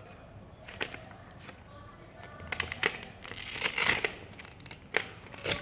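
Handling noise from a Roborock S5 Max mop cloth being pulled off its plastic mop bracket: rustling and scraping of cloth and plastic with several sharp clicks.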